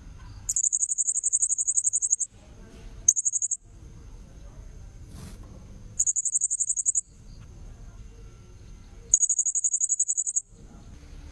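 Blue-crowned hanging parrot (serindit) lure recording: very high, shrill calls in rapid pulses, coming in four bursts of about half a second to two seconds each. Between the bursts a faint steady high whine runs on.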